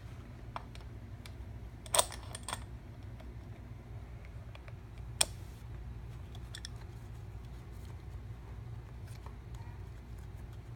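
A few sharp small metal clicks and taps as a screwdriver pries at the knob collars and nuts on a guitar effects pedal: a quick cluster about two seconds in and a single louder click about five seconds in, over a steady low hum.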